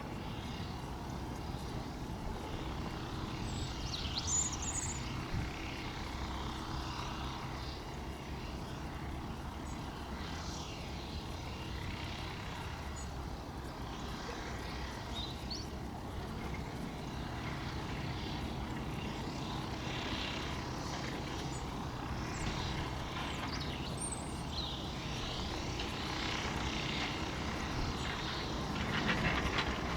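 Jet airliner engines, the Airbus A330-900's Rolls-Royce Trent 7000s, heard at a distance as a steady low rumble and hiss.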